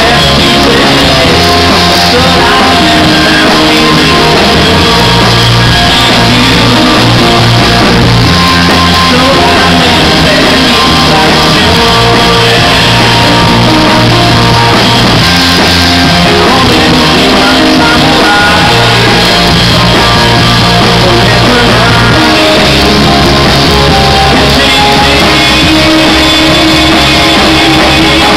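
Live rock band playing loudly, with a man singing lead vocals over guitar and bass.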